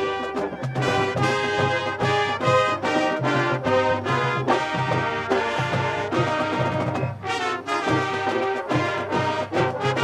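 Marching band playing: a brass section over drums keeping a steady beat, with a short break in the texture about seven seconds in.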